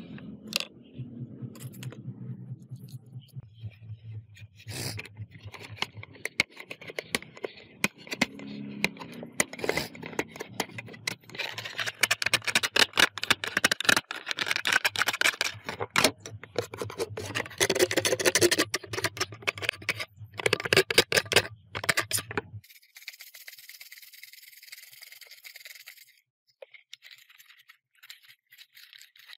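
Hard parts scraping, scratching and rattling in irregular strokes, over a steady low hum that cuts off suddenly about three-quarters of the way through; a faint high hiss follows.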